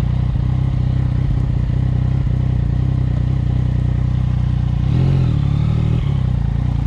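Motorcycle engine running steadily at low revs on a rough track, with a brief rev-up about five seconds in.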